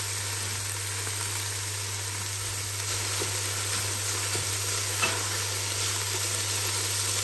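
Diced mixed vegetables sizzling in oil in a nonstick wok, their water cooked off, as a spatula stirs and tosses them, with a few faint scrapes of the spatula on the pan.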